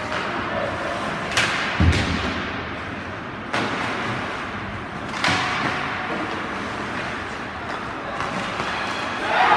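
Ice hockey play in a small rink: skates scraping and several sharp knocks of sticks and puck, some loud enough to be the puck hitting the boards. Crowd cheering starts to rise near the end as a goal goes in.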